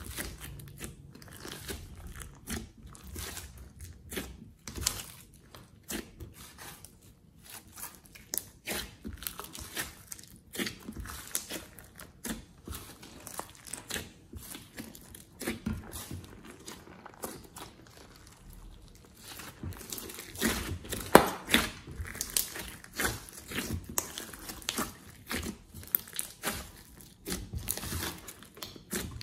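Hands squeezing, kneading and stretching a large mass of glossy slime, giving a run of irregular small clicks and pops. They come thicker and louder in the last third, with the sharpest pop a little past two-thirds of the way in.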